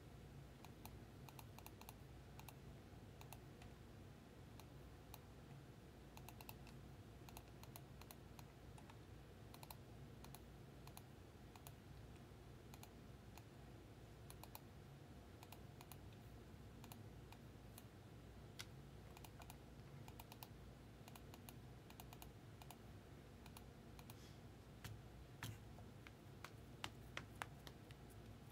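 Faint computer keyboard typing and clicking: scattered light keystrokes, with a few louder clicks near the end, over a low steady hum.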